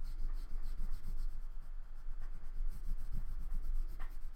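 White oil pastel rubbed back and forth across paper in short, repeated strokes as a shape is coloured in: a continuous scratchy scribbling.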